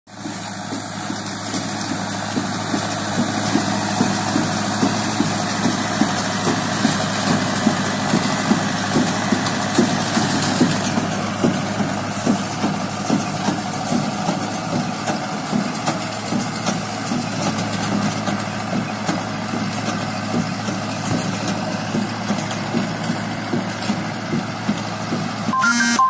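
Mahindra 575 Yuvo tractor's four-cylinder diesel running steadily under load while pulling a working square baler, with a regular beat about twice a second from the baler's plunger packing straw. A short beeping tone sounds near the end.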